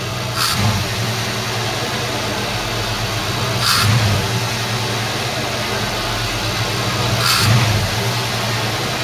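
Chevy throttle-body-injection engine idling, revved briefly by hand at the throttle linkage three times about three and a half seconds apart, each rev with a short hiss. The throttle is being worked to free the bored-out throttle body's valves, which stick and keep it from returning fully to idle, perhaps because of the boring.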